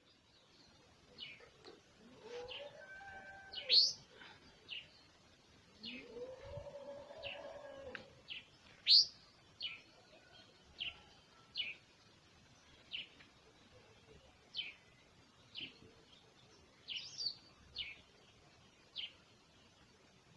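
Birds chirping: short, sharp high calls repeating about once a second, two of them louder rising chirps. Twice in the first half, a longer, lower drawn-out call from another animal rises and falls in pitch.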